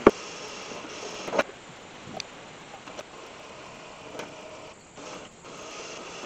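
Chain and wooden utility pole being hauled by hand up a plywood ramp onto a trailer: a sharp clank at the very start, another about a second and a half in, then a few lighter clinks over a steady hiss.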